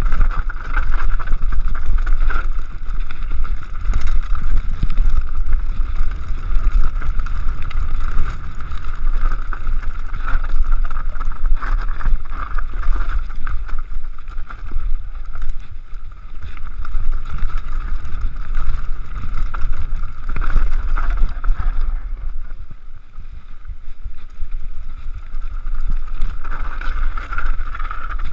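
Wind buffeting the camera microphone on a downhill mountain bike ride, with the bike rattling and clattering over a rocky trail. A steady high buzz runs underneath and drops away for a few seconds about three-quarters of the way through.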